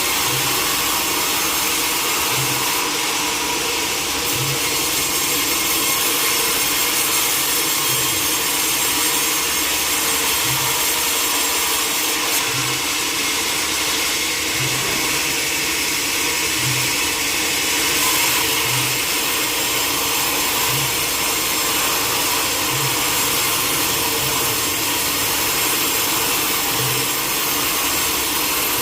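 Sawmill saw cutting steadily through a log: a continuous loud, hissing sawing noise, with a faint low pulse repeating about every two seconds.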